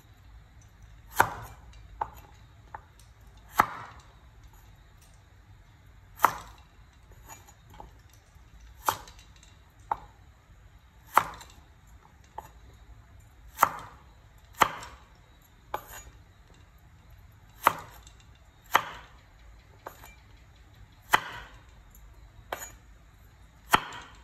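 Carrot pieces being chopped with a broad-bladed kitchen knife on a wooden cutting board: sharp single knocks of the blade hitting the board, one every second or two at an uneven pace, with fainter taps in between.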